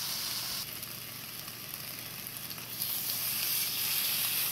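Sliced onions and mushrooms sizzling in hot olive oil in a cast iron skillet, a steady frying hiss. The sizzle grows louder about three seconds in as a seasoned T-bone steak is laid into the pan.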